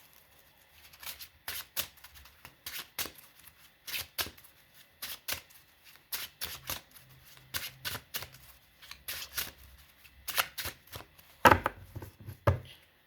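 A tarot deck being shuffled by hand: a steady run of short card snaps and riffles, with two louder knocks near the end.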